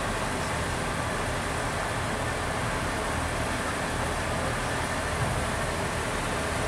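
Class 143 Pacer diesel multiple unit idling steadily at the platform: its underfloor diesel engines give a constant low rumble.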